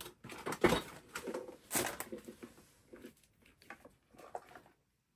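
Rustling and light knocks of small packaged items, such as cosmetics, being handled and rummaged out of a cardboard box, with a sharper clack just under a second in and another near two seconds.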